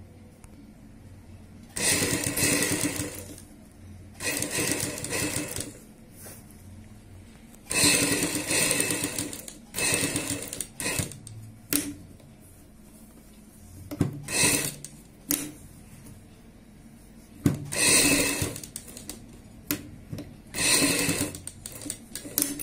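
Black domestic sewing machine stitching piping onto fabric in about eight short runs of one to two seconds each, with pauses and a few clicks between them while the fabric is turned and guided along the curve.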